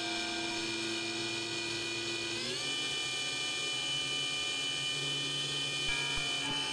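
Electric motor and propeller of a small RC Yak-54 model plane whining, heard from on board, in flight. The pitch rises about two and a half seconds in as the throttle opens, then drops slightly near the end.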